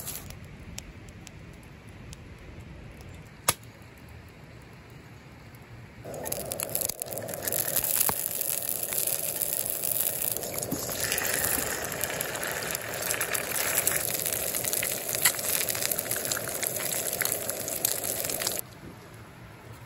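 Sausages frying in hot oil in a cast-iron skillet, a dense crackling sizzle that starts suddenly about six seconds in and cuts off abruptly near the end. Before it, only faint scattered ticks and one sharp click.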